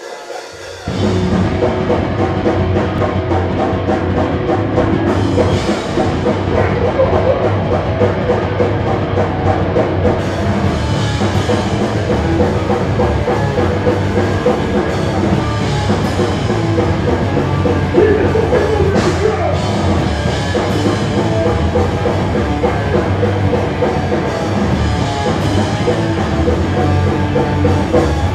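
A live rock band starts up abruptly about a second in and plays loudly: distorted electric guitars, bass and a pounding drum kit in a heavy, punk-edged style.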